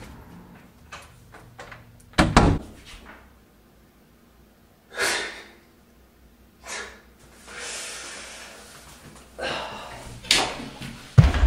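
Door sounds in a small room: a heavy thud about two seconds in, a few shorter knocks and swishes, then a frosted-glass sliding shower door pushed along its track, with a sharp bang near the end.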